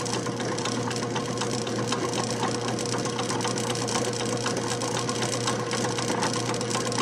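Electric water pump motor running steadily: a constant low hum with a steady tone above it and a fast, fine mechanical rattle.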